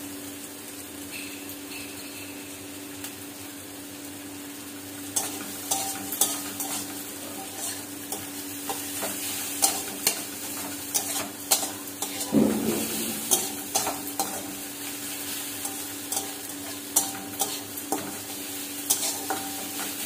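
Onion, tomato and grated ginger-garlic sizzling in oil in an aluminium kadai over a low gas flame. From about five seconds in, a flat metal spatula stirs and scrapes the pan, with frequent sharp clinks against the metal.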